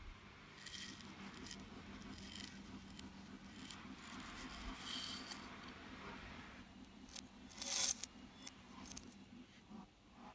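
A metal spoon scooping and scraping through dry chocolate puffed-rice cereal in a ceramic bowl, the pieces rattling and rustling against the bowl and spoon, played backwards. The loudest rattle of cereal comes just before the eight-second mark.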